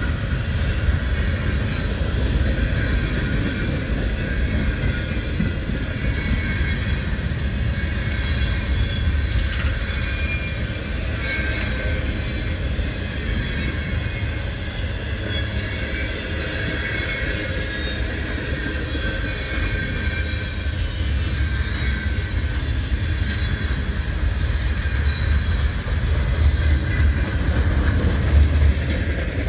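A train rolling past at close range with a steady heavy rumble, and high thin wheel squeals coming and going over it.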